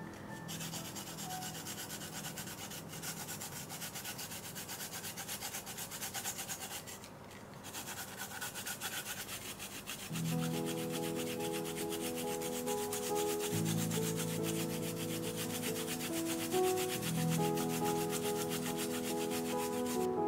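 Fresh ginger root grated on a clear plastic ginger grater: quick, rhythmic rasping strokes with a short pause about a third of the way through. Soft background music comes in about halfway and plays under the grating.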